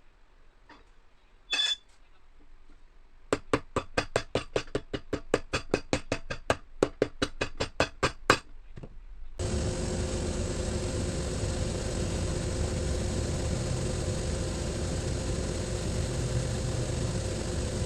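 Shoe-repair work: a single clink, then a quick run of sharp taps, about five a second for some five seconds. Then an electric machine motor switches on suddenly and runs steadily with a hum.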